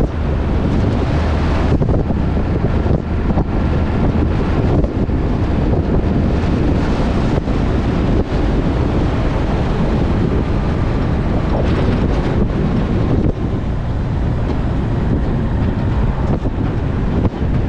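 Truck driving at road speed: a steady low rumble of engine and tyres under heavy wind rush on the microphone.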